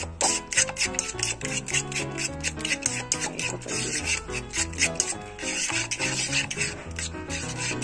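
A fork beating raw eggs mixed with sardines in a plastic bowl: quick, repeated scraping strokes against the bowl. Background music plays underneath.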